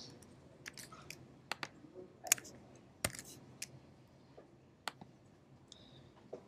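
Scattered clicks of a computer mouse and keyboard keys, irregular and spaced a fraction of a second to a second apart, with a brief faint high tone about six seconds in.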